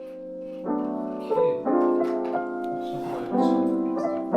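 Soft background piano music: slow, sustained chords and melody notes.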